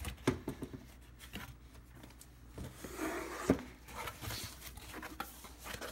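A cardboard product box being opened by hand: the lid rubbing and sliding off, with light rustling and scattered knocks, the sharpest tap about three and a half seconds in.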